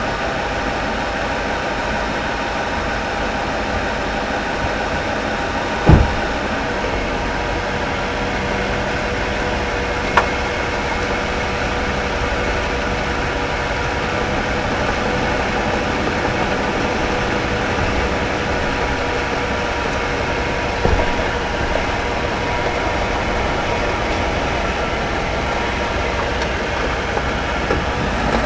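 Front end of a 2013 Ford F-150 4x4 making a steady grinding noise at the front drive axle, with a steady tone that sets in a few seconds in and a few sharp knocks. The owner traced the noise to a failing integrated wheel end (IWE).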